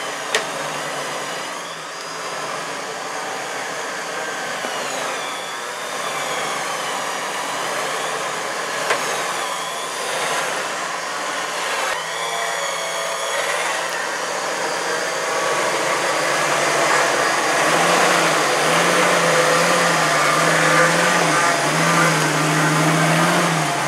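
Jeep Wrangler TJ's engine revving as it crawls through a mud hole, louder in the second half, its note rising and falling several times near the end.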